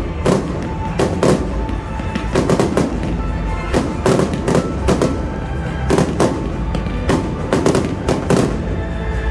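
Fireworks display: shells launching from ground mortars and bursting overhead, a sharp bang more than once a second with no letup.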